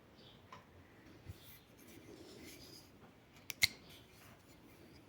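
Faint handling and rustling of small objects, with a light tick just over a second in and a sharp double click about three and a half seconds in.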